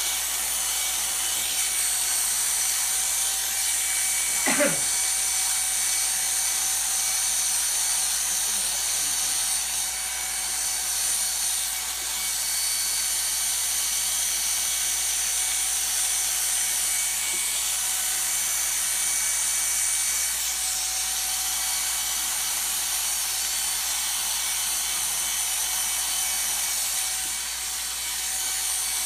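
Corded electric dog-grooming clippers running steadily with a high whine as they cut through a miniature schnauzer's coat. About four and a half seconds in, a brief sound sweeps quickly down in pitch.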